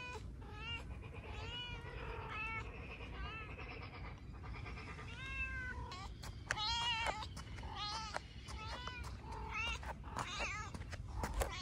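Kittens meowing over and over: about a dozen short, high-pitched calls, each rising and falling, with a steady low rumble underneath.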